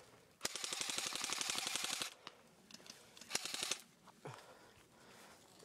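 Airsoft rifle firing on full auto: a rapid burst of about a second and a half, then a shorter half-second burst about three seconds in.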